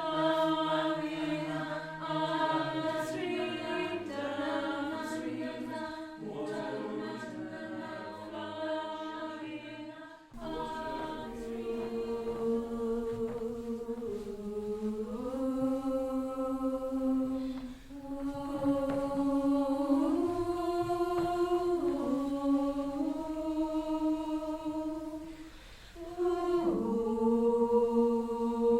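A choir singing in several parts, holding long chords and moving between them in steps. The sound changes abruptly about a third of the way in, and the singers pause briefly near the end before coming back in.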